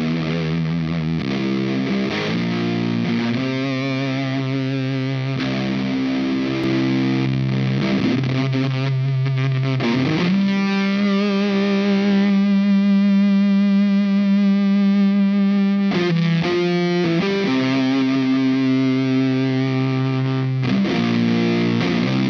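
Electric guitar tuned down to C standard, played through a RAT-style Dazatronyx RAD distortion pedal with every control on full except Hair. It plays heavy distorted chord riffs, and about halfway through one low chord rings out for several seconds.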